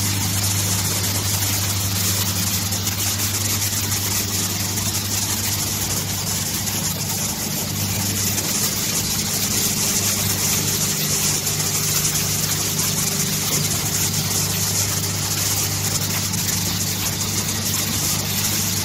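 Automatic soldering line with vibratory bowl feeders running: a steady, even machine hum with a strong low tone and a high hiss.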